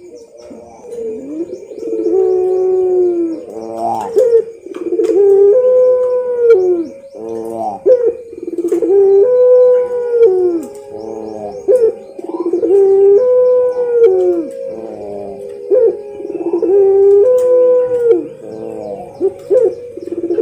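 Puter pelung, a long-calling variety of domestic Barbary dove, cooing in a repeated phrase of drawn-out, bending coos, about five phrases roughly four seconds apart. Faint chirps of other small birds sound behind it.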